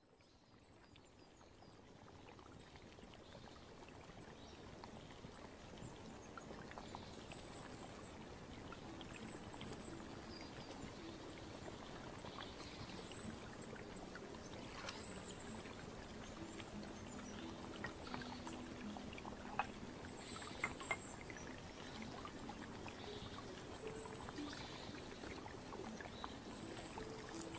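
Soft, steady flowing-water ambience, faint, fading in from silence over the first few seconds. It is dotted with faint clicks and brief high chirps.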